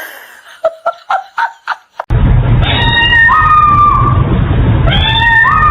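A cat meowing several times in short, gliding calls. Then a loud, low rumbling noise starts suddenly, with two long drawn-out calls that each step up in pitch and hold.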